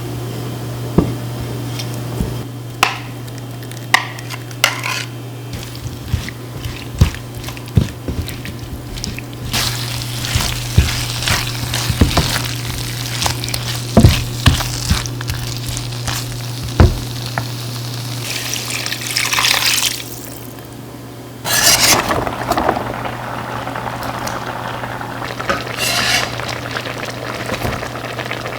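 Home cooking at the stove: a utensil knocking and stirring in a pan, with long stretches of sizzling hiss, over a steady low hum.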